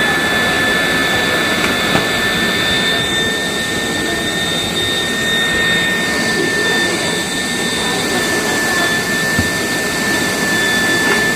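A Numatic vacuum cleaner running at full speed: a loud, steady rush of air with a constant high motor whine.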